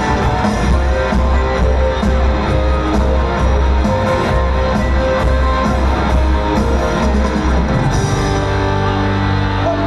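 Band music: guitar, bass and drums playing an instrumental passage of a Chinese pop song, with a steady drum beat and a bass line that shifts to a new note near the end.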